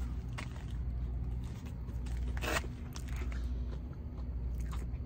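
Chewing a mouthful of crispy breaded chicken fries: scattered soft crunches and mouth sounds over a steady low hum.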